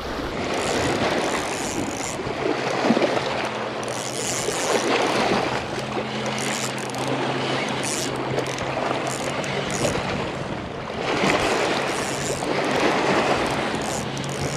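Gusty wind buffeting the microphone and lake water lapping at the shore, swelling and easing every few seconds. A steady low hum joins in about two seconds in and runs on beneath it.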